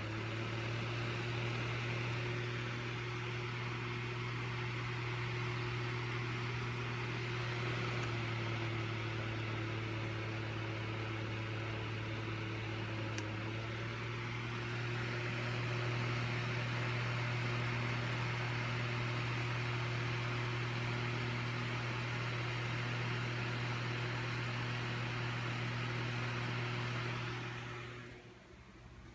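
Electric fan running steadily on one setting: a low motor hum under an even, airy hiss. It cuts out about 28 seconds in.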